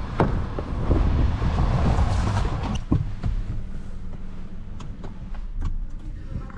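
Wind rumbling on the microphone with scattered knocks. After about three seconds it gives way to a quieter steady low hum with a few small clicks.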